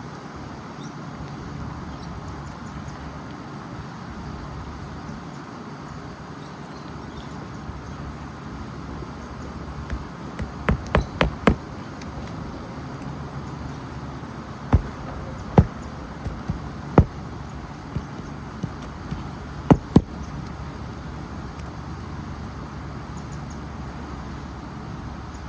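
Hammer strikes driving roofing nails into an asphalt replacement shingle: a quick run of about five strikes about ten seconds in, then scattered single and paired strikes, over a steady background hum.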